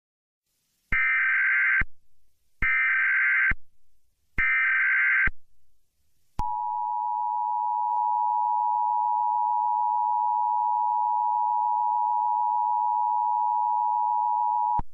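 Emergency Alert System tones: three one-second bursts of SAME header data, then the steady two-tone EAS attention signal (853 and 960 Hz) held for about eight seconds. It cuts off just before the end.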